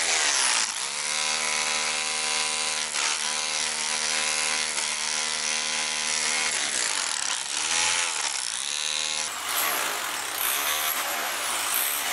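Electric rotary hammer running in chisel mode, chipping away a concrete ledge at the base of a wall. The motor's steady whine sags and recovers a few times as the bit bites into the concrete.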